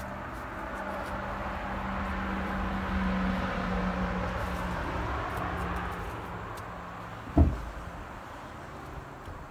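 A vehicle's engine hum swells and then fades over the first several seconds. About seven and a half seconds in comes a single heavy thud as the end of a 6x6 wooden post is set down on the wooden deck boards.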